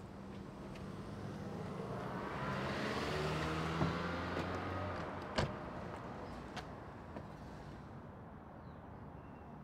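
A car driving past on the street: it grows louder to a peak a few seconds in, then fades away. A few sharp knocks sound over it, the loudest about five seconds in.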